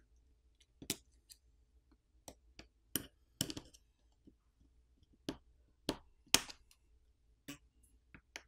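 Scattered sharp clicks and taps, about a dozen, as a plastic pry pick works at flex-cable connectors on a smartphone's main board and pops them off.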